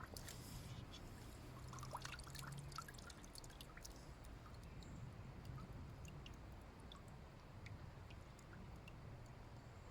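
Faint dripping and trickling water with scattered small clicks and taps, most of them in the first three seconds.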